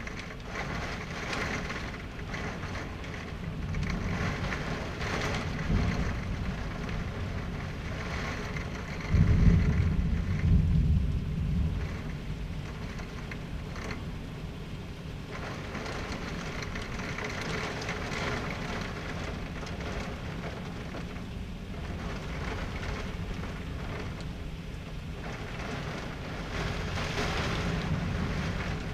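Severe thunderstorm: heavy rain and wind in a steady rushing wash that swells and eases. A loud, low rumble of thunder comes about nine seconds in and lasts a few seconds.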